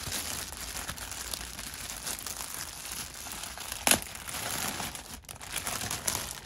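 Clear plastic poly bag crinkling and rustling as it is handled and pulled open around a backpack, with one sharp, louder snap about four seconds in.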